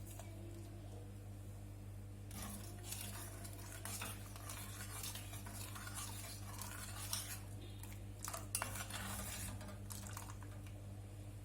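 A utensil stirring and scraping in a cooking pot, starting about two seconds in and going on in two spells with a short break between them, over a low steady hum.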